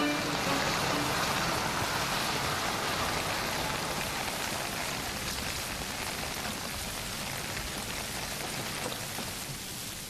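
Steady rain falling, an even hiss that eases slightly toward the end.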